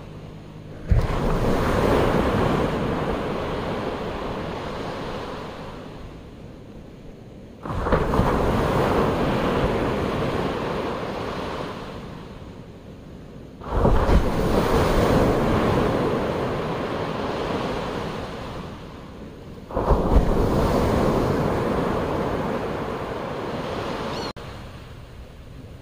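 Ocean waves breaking on a beach: four breakers about six seconds apart, each crashing in suddenly and fading away slowly.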